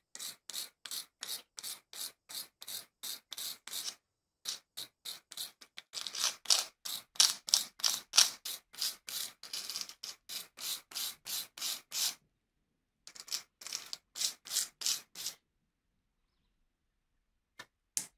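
Small metal lighter part scrubbed against a brass wire brush in quick back-and-forth strokes, about three or four a second, in three runs with short pauses between; two light clicks near the end.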